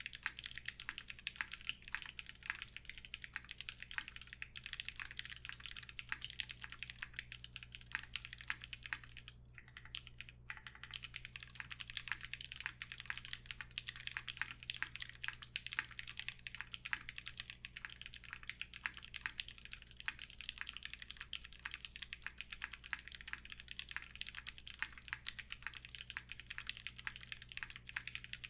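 Fast, continuous typing on a Mekanisk Klippe S custom mechanical keyboard with lubed Alpaca linear switches on 67.5g springs, a polycarbonate plate, foam dampening and GMK keycaps. There is a brief pause about ten seconds in.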